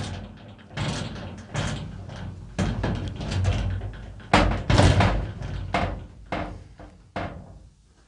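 Sheet-metal cabinet doors being pulled and banged: a run of about a dozen irregular metallic bangs, each with a short ring, spaced under a second apart and dying away near the end.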